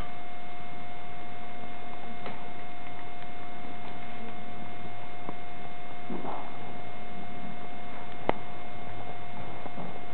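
Steady hum and hiss with a constant whine throughout, broken by a few faint ticks and one sharp click about eight seconds in.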